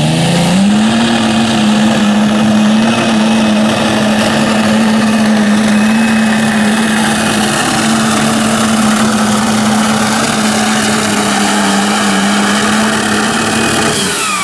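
Case IH Magnum pulling tractor's turbocharged diesel engine at full throttle under heavy load, dragging a weight-transfer sled, a loud steady drone at one held pitch. The pitch sags at the launch and climbs back within the first half second. Near the end a falling whine comes in and the level drops as the pull ends.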